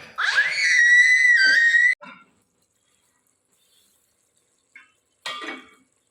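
A loud whistle that slides up in pitch and holds steady for just under two seconds, then stops abruptly. A brief rustle or clatter follows near the end.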